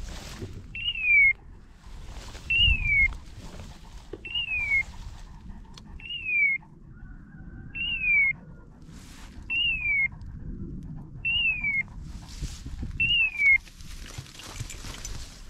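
A dog's electronic beeper collar sounding a short falling chirp eight times, evenly about every second and three-quarters. Bursts of rustling noise come between the chirps.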